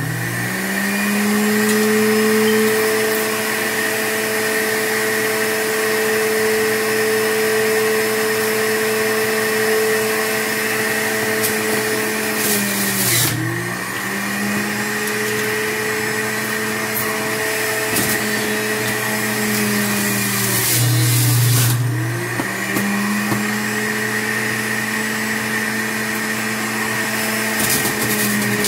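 PowerXL self-cleaning centrifugal juicer motor running steadily with a whine, grinding apple. It dips in pitch and picks back up twice, about halfway through and again about three quarters through, as the pusher forces produce onto the spinning blade.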